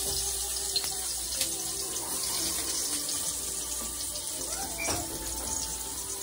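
Chopped onion sizzling in hot oil in a wok, a steady hiss: the first step of a sauté, onion before garlic.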